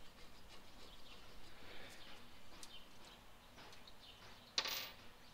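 Quiet hand work on a brake caliper with a few faint light ticks, then about four and a half seconds in a brief metallic rattle of sockets being picked out of a plastic socket set case.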